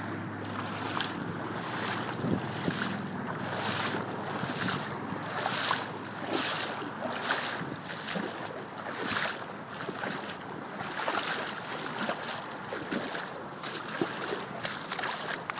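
Wind rushing over the microphone outdoors, with a high hiss that pulses about twice a second.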